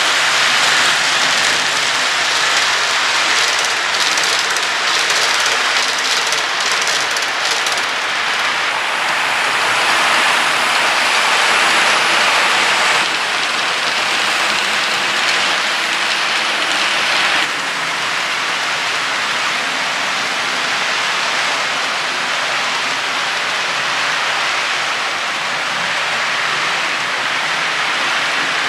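HO scale model train running on the layout: a steady hiss of the cars' wheels rolling on the track and the locomotive's motor. It turns a little quieter about two-thirds of the way in.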